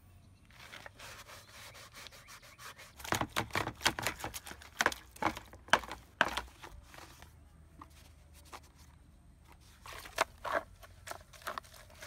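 Stiff plastic hand brush scrubbing a wet plastic scooter body panel in quick back-and-forth strokes, with a pause and then a second run of strokes near the end.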